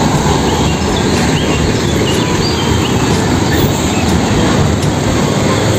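Steady rumble of road traffic as a Mitsubishi Fuso crane truck and motorcycles drive past.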